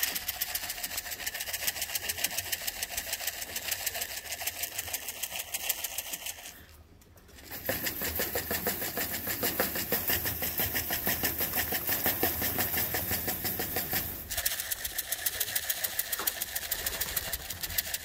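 A small engine or motor running with a rapid, even ticking clatter. It drops away for about a second roughly seven seconds in, then carries on.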